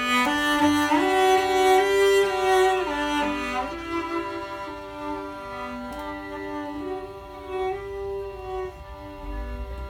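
Violin and cello playing a folk tune together, bowed, louder in the first four seconds and then softer.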